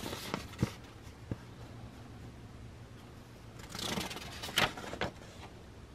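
Paper instruction sheet rustling and crinkling as it is unfolded and turned by hand. A few soft clicks come in the first second and a half, and a longer rustle follows a little under four seconds in.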